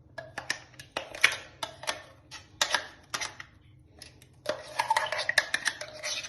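Spoon scraping and knocking ground paste out of a mixer-grinder jar into a bowl: a run of sharp clicks and knocks, with a longer stretch of scraping about four and a half seconds in.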